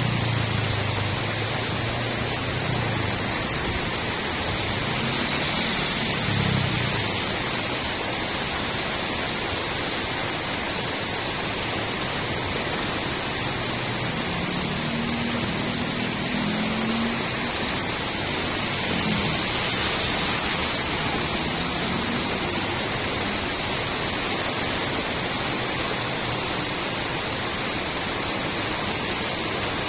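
Steady rain falling on a street, an even hiss of water throughout. A low wavering hum fades out in the first few seconds and briefly returns around the middle, and a short sharp tick about two-thirds of the way through is the loudest moment.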